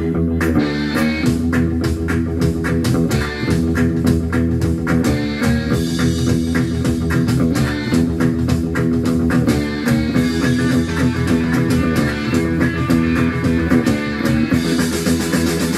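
Electric bass guitar played along to a rock recording with drums and guitar, with a steady beat throughout.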